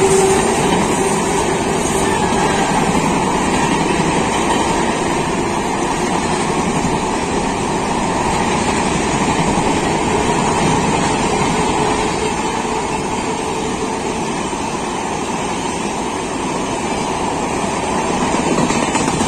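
An electric locomotive passes with a steady whine that fades after the first couple of seconds, followed by the steady running noise of passenger coach wheels on the rails as the train rolls past.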